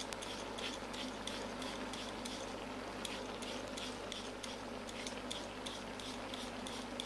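Vegetables frying in a hot pan while being stirred: a steady stream of small scattered crackles and pops, with light clinks and scrapes of the utensil against the pan, over a steady low hum.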